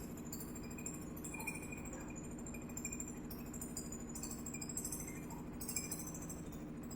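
A one-bag concrete mixer's motor running with a steady hum, with light irregular clinking and rattling over it.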